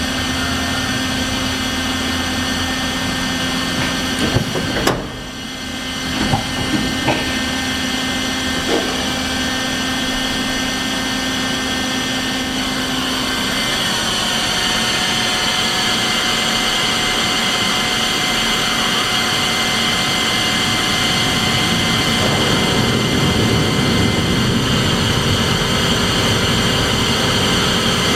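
Bridgeport FGC 1000 vertical blade grinder running, a steady machine hum with several high whining tones. A few sharp knocks come about four to nine seconds in, and the pitch of the running changes about halfway through and again near the end.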